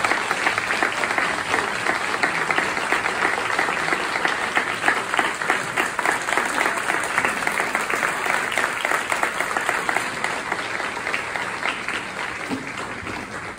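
Audience applauding: a dense, sustained round of clapping from a large crowd that tapers off near the end.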